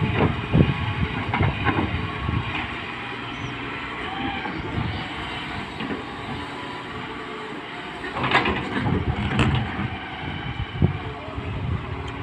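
Tata Hitachi 210 tracked excavator at work: its diesel engine runs steadily while the steel bucket knocks and scrapes through rocky soil. There are clusters of sharp knocks in the first two seconds and again about eight to nine and a half seconds in.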